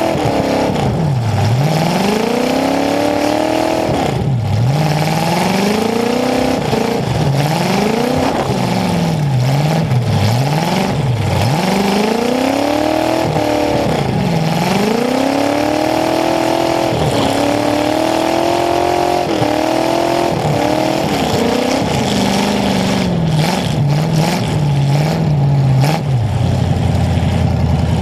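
Demolition derby car's engine, heard close up through the exhaust pipes that come up through its hood, revved up and down over and over, each rev rising and falling within a second or two. Near the end it settles into a lower, uneven run.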